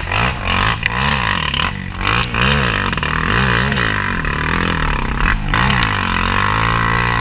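ATV engine revving up and down over and over, its pitch rising and falling every second or so, as a quad ploughs through a mud puddle, with a hiss of splashing mud and water.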